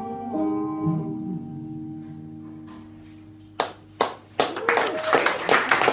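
The song's last sustained notes ring and fade away. About three and a half seconds in, a few scattered claps start, then quickly fill out into audience applause.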